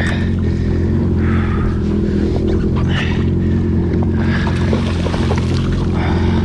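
Yamaha WaveRunner jet ski engine running steadily, with water splashing against the hull.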